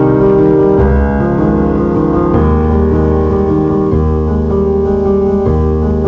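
Instrumental background music led by piano, with held chords changing about every second and a half.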